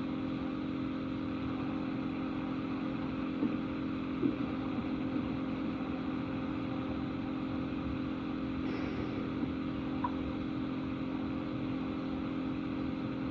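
Steady low hum and faint hiss on a telephone line during a pause in a recorded 911 call, with a few faint knocks about three and a half, four and ten seconds in.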